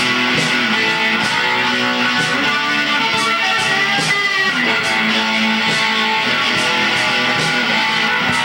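Electric guitars playing a heavy metal band jam, held chords and notes changing every second or so, with cymbal strokes about twice a second.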